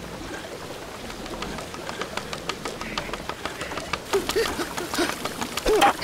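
Water pouring off a wooden mill chute onto a waterwheel: a steady splashing with many small drips and spatters. A few short squeaky sounds come in near the end.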